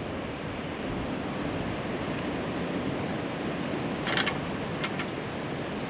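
Steady wash of sea surf against the rocks, with a few short sharp clicks a little past the middle.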